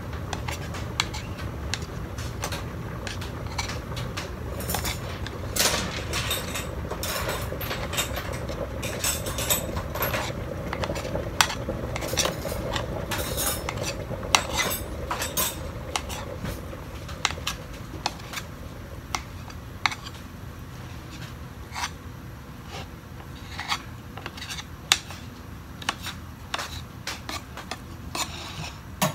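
Kitchen knife tapping and scraping on a ceramic plate while a cooked egg omelette is chopped into strips: many irregular clicks and scrapes of the blade against the plate.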